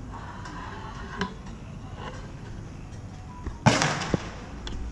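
A firecracker goes off with one loud bang about three-quarters of the way in, followed half a second later by a single sharp crack. Faint music plays underneath.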